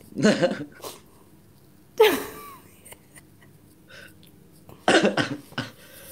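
A person coughing in three bouts a couple of seconds apart. Each bout is a sudden, loud hack, and the last one is longer and broken up. This is a genuine cough, not a put-on one.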